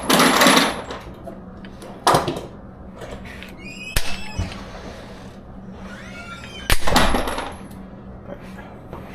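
Four single gunshots, roughly two seconds apart, each echoing off the walls of an indoor firing lane. Between the shots, ejected brass casings ring and clink as they land.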